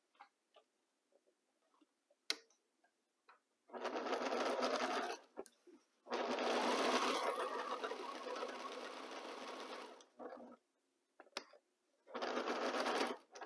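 Electric sewing machine stitching a patchwork quilt-block seam in three runs: about a second and a half, then a longer run of about four seconds, then a short one near the end, with stops in between. A single sharp click comes before the first run.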